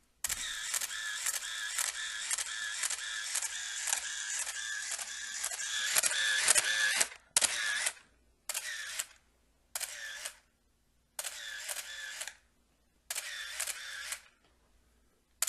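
Canon A1 35mm SLR firing with the Canon Power Winder A attached: the shutter release followed by the winder's motor advancing the film. It runs as one continuous burst of repeated frames for about seven seconds with the release held down, then comes in several shorter bursts separated by pauses.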